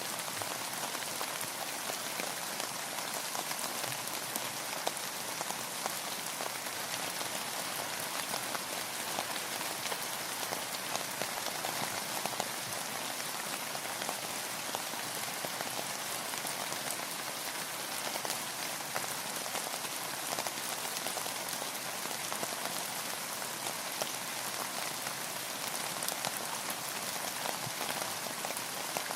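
Steady rainfall, a dense even patter of many raindrops hitting a surface.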